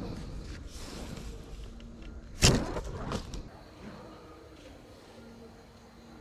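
Homemade bamboo bow loosing a flaming arrow: one sudden, loud snap of the string about two and a half seconds in, fading over about a second.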